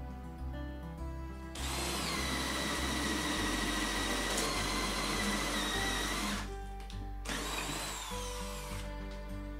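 Electric drill boring through a softwood board with a 27 mm auger bit, the motor whining steadily for about five seconds. After a short pause there is a second, briefer run whose whine falls away in pitch.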